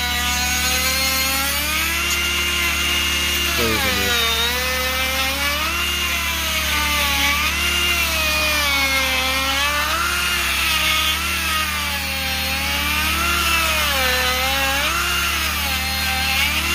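Dremel rotary tool with a carving burr grinding into wood to cut feather detail. Its motor whine keeps dipping and rising in pitch as the bit is pushed into the wood and eased off.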